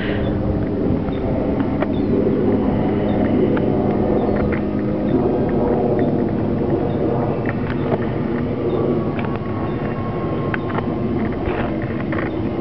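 Model airplane motor droning as it flies overhead, its pitch stepping up about five seconds in, over a steady low rumble.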